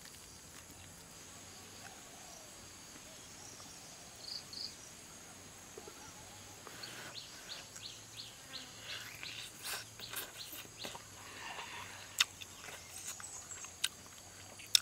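Faint outdoor insect ambience, then from about seven seconds in, a person biting and chewing a whole cooked fish with many quick mouth smacks and clicks, and a couple of sharper clicks near the end.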